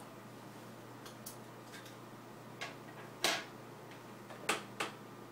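A handful of short, sharp clicks and taps as an iPhone 4 is handled and its screen is touched. The loudest comes about three seconds in and a quick pair follows near the end, over a faint steady hum.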